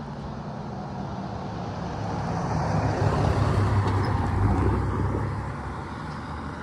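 Amtrak diesel locomotive passing with a low engine drone that builds to its loudest in the middle and then fades away.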